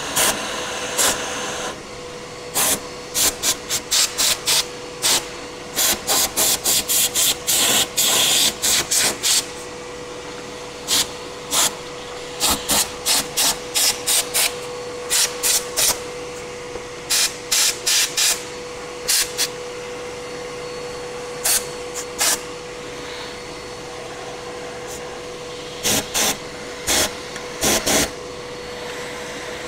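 A shop vacuum runs steadily with a constant whine while a compressed-air blow gun fires many short hissing blasts in clusters, blowing road salt off the cab floor and wiring harness into the vacuum.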